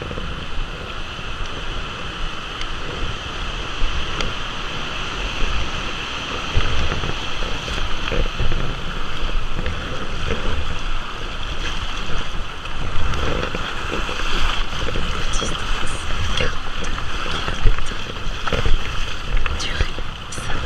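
Kayak on a river: water splashing and rushing around the paddle and hull, with wind rumbling on the microphone.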